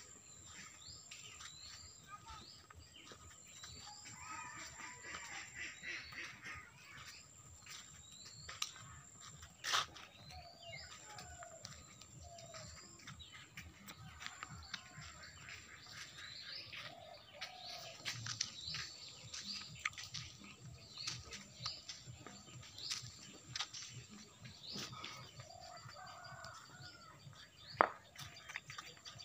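Small birds chirping over and over in quiet outdoor ambience, with a sharp click about ten seconds in and another near the end.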